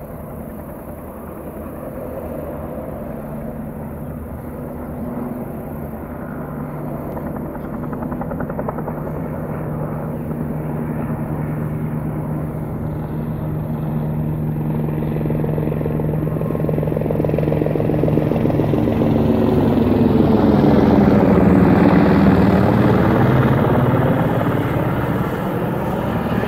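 Firefighting helicopter's rotor and engine droning steadily, growing louder as it approaches and passing closest about three-quarters of the way through, then easing off slightly.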